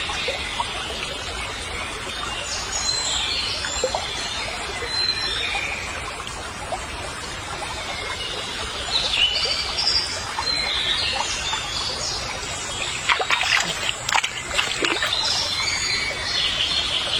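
Small birds chirping repeatedly over a steady background hiss of water, with a brief run of sharp splashy sounds about three quarters of the way through.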